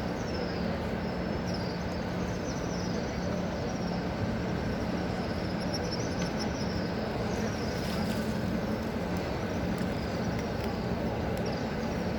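Steady crowd ambience of many pilgrims around the Kaaba, an even wash of noise with a low steady hum under it and faint high wavering chirps recurring throughout.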